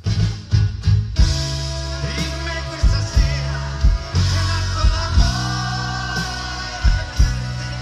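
Live band performance: a male vocalist singing into a microphone over bass and drums, with a drum hit every second or so.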